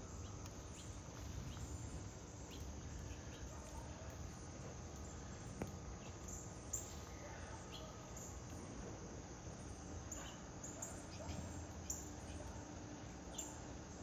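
Backyard outdoor ambience: a steady drone of insects with short high bird chirps every second or so, and a few faint sharp clicks.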